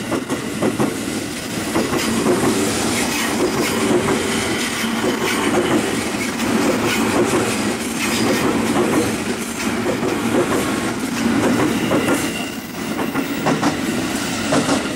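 KRL Commuter Line electric multiple-unit train passing close by at speed, its wheels clattering over the rail joints in a steady run of clicks. A brief high tone comes in near the end.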